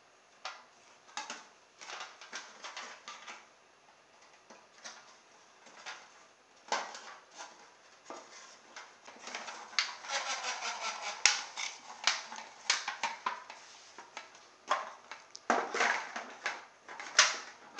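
Irregular clicks, taps and crinkles of a thin aluminium foil takeaway tray being handled as CD wheels with plastic bottle-cap hubs on wooden skewer axles are fitted to it. The handling noise is sparse at first and comes thicker after the middle.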